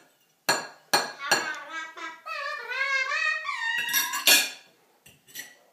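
A metal fork clinking on a ceramic dinner plate three times in quick succession. A wordless voice then wavers up and down in pitch for about a second and a half, followed by one more sharp clink, the loudest sound.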